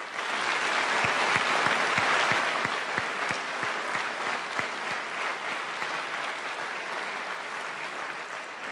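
Large audience applauding, loudest in the first few seconds and then slowly dying down.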